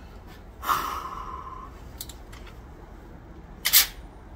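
A pump-action shotgun being handled. About a second in comes a metallic clatter with a short ringing note, and near the end a quick double click, like the action being worked.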